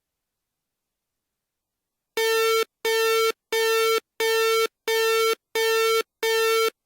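Electronic school bell chime: a buzzy synthesized beep at one steady pitch, repeated about one and a half times a second. It starts about two seconds in, gives seven beeps of about half a second each, and an eighth begins at the very end.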